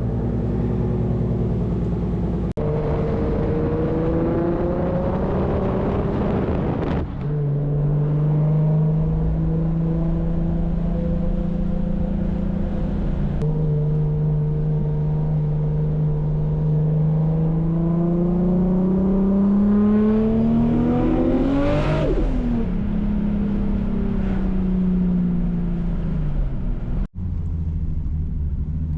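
Toyota Supra MK4's inline-six engine pulling under acceleration, its pitch climbing through the revs several times. It peaks a little past two-thirds of the way through and then drops away as the throttle eases. The sound breaks off abruptly a few times along the way.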